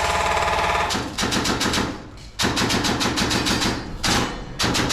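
Airsoft guns firing on full auto in several rapid bursts, each a fast rattle of shots with short pauses between.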